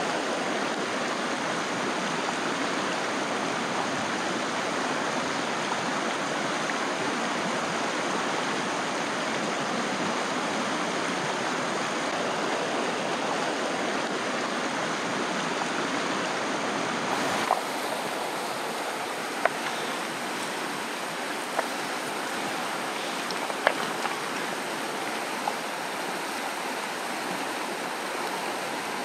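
Shallow river rapids rushing steadily over rocks. The sound shifts slightly about two-thirds of the way through, and after that a handful of short, sharp clicks stand out above the water.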